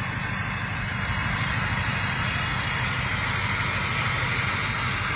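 Ford F-250 Super Duty pickup's engine idling steadily, a little loud, with an even low rumble.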